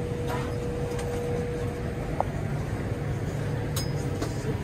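Steady low rumble and hiss of an Airbus A320's cabin air-conditioning during boarding, with a thin steady hum. A couple of faint knocks come from the cabin.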